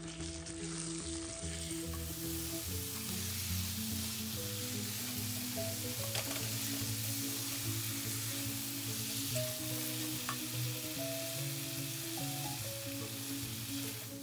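Onions, spices, tomatoes and chickpeas sizzling in oil in a pan while being stirred with a silicone spatula. The sizzle grows louder about two seconds in and holds steady, over soft background music with long held notes.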